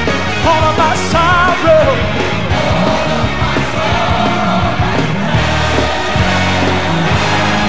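Live gospel band music with a heavy bass line, a wavering high melody line standing out briefly between about half a second and two seconds in.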